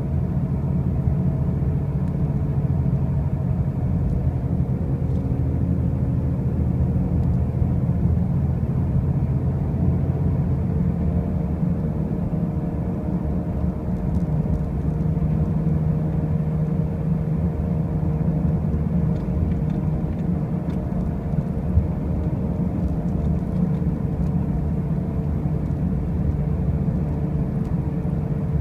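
2005 Pontiac Grand Prix driving with a loud, steady low rumble and a droning hum that drifts slightly in pitch. This is the noise the car makes while driving that the owner cannot trace, even with brand-new wheel bearings and new tires.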